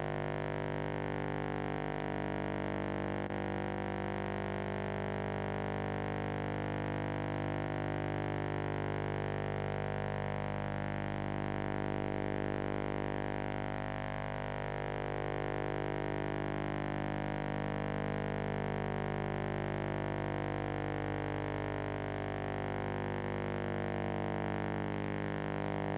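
Background music: a synthesizer chord held as a steady drone, with a slow sweeping shimmer through its overtones.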